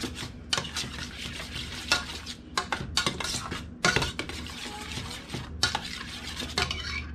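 Metal spoon stirring SpaghettiOs in a stainless steel saucepan, scraping and clinking against the pot in repeated strokes.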